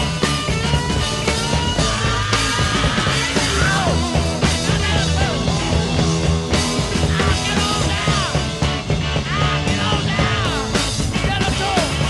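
Rock music with a steady bass line and lead lines that bend up and down in pitch.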